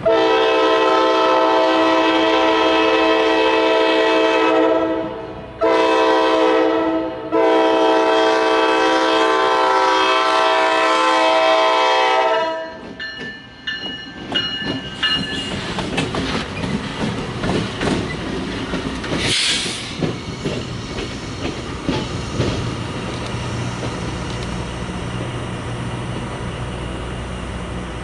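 Diesel locomotive air horn blowing three blasts, a long one, a short one, then a long one, that stop about twelve seconds in. The train then rolls by, its wheels clicking over the rail joints under a steady low engine rumble, with one brief high wheel squeal along the way.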